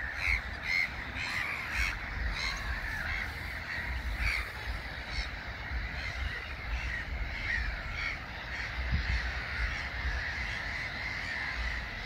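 Nesting colony of black-headed gulls calling: a continuous din of many harsh, overlapping short calls.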